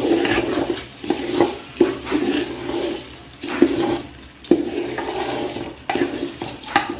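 A slotted metal spatula stirring and scraping raw rice around an aluminium pot as the rice is dry-fried with onions and spices, in a series of irregular scraping strokes with the grains rustling between them.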